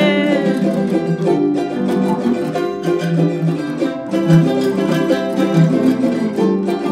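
Instrumental break of a son jarocho played live: a small jarana strummed in a quick, even rhythm over two acoustic guitars. The last sung note of the verse dies away about half a second in.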